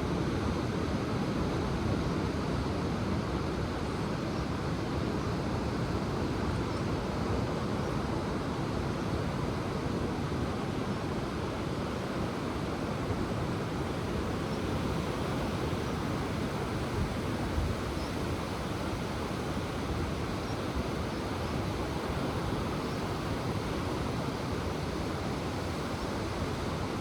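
Ocean surf breaking on the shore, heard as a steady, even rush with no distinct surges.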